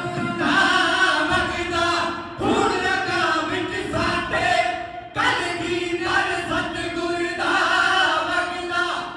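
Dhadi jatha: several male voices singing a Punjabi ballad together, in three long phrases with short breaks between them, with dhadd hourglass drums.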